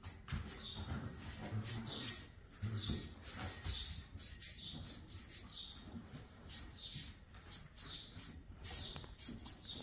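Small birds chirping over and over, short high chirps that fall in pitch, one or two a second, over soft low rustling.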